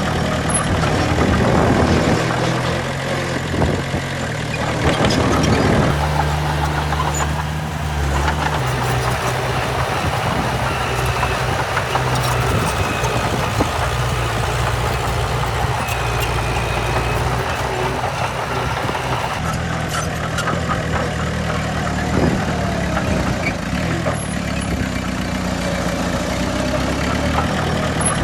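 Heavy diesel earthmoving machinery running steadily, its engine note shifting a couple of times, with scattered clanks and knocks.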